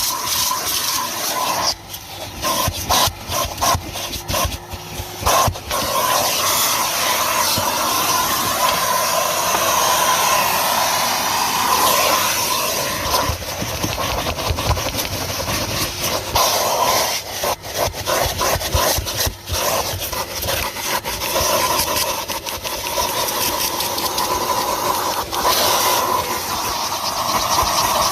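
Kerstar KV25-2 twin-motor commercial vacuum cleaner running while vacuuming a car: a steady motor whine under a loud rush of air that dips and swells as the nozzle meets and leaves surfaces, with frequent short clicks and knocks of picked-up debris and the tool.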